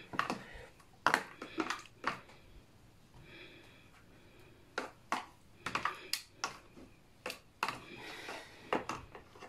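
Metal spoon and fork clicking and scraping against each other and against a plastic tub while croquettes are turned in beaten egg. Irregular sharp clicks, some with a brief ring.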